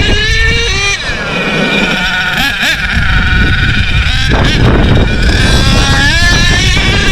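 HPI Savage X4.6 nitro RC monster truck's engine revving, its high-pitched whine climbing and dropping again and again over a steady low rush of noise.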